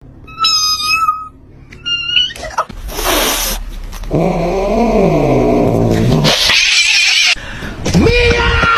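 Cat sounds: two short high meows in the first two seconds, then a hiss, a long low wavering meow-like call, another hiss, and a steady held tone near the end.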